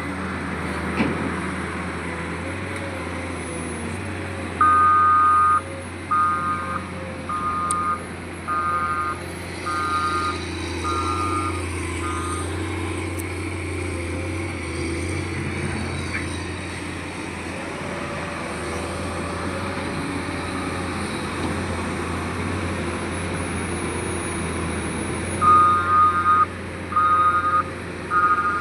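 Hydraulic excavator's diesel engine running steadily, with a warning beeper sounding about once a second for several seconds, stopping, then starting again near the end.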